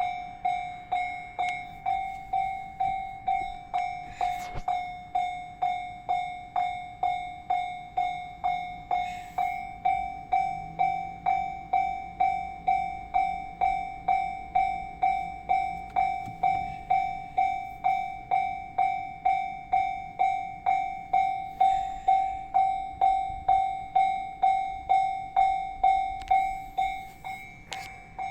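Japanese railway level-crossing warning bell ringing in an even rhythm, a little under two strikes a second, each strike one ringing tone that dies away.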